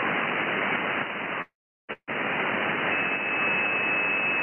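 Hiss of band noise from a Yaesu FTDX10 receiving on 40 m lower sideband, cut off sharply at the top by its 3 kHz receive filter. The hiss drops out for about half a second around a second and a half in, and a thin steady whistle of a heterodyne joins about three seconds in.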